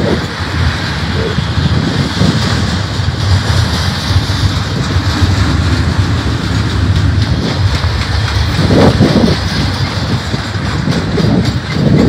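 Steel wheels of a double-stack container train's well cars rolling past on the rails in a steady rumble. It swells louder about nine seconds in and again at the end as wheel sets at the car joints go by.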